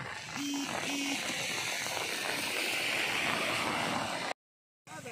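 Steady hiss of rain falling on floodwater, swelling through the middle, with two short electronic beeps in the first second. The sound cuts off suddenly about four seconds in, and after a brief gap a warbling electronic tone starts.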